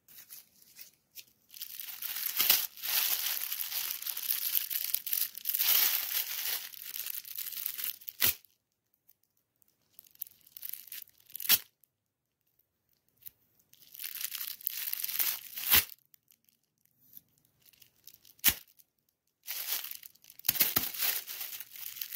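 Red holographic metallic foil gift wrap crinkling and tearing as hands pull it open. It comes in several bursts, the first about six seconds long, with a few sharp snaps between them.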